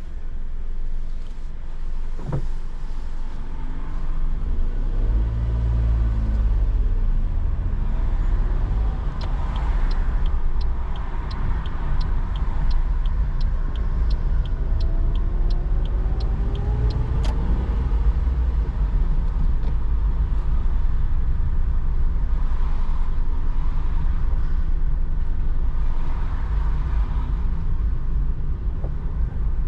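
Car cabin noise while driving on wet roads: a steady low road and engine rumble, with the engine pitch rising twice as the car accelerates. A regular ticking, about two a second, runs for several seconds in the middle.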